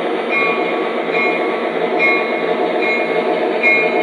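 O-scale model of the Krauss-Maffei ML-4000 diesel hydraulic running on three-rail track, its onboard sound system playing a steady diesel engine sound. A short high note repeats about once a second.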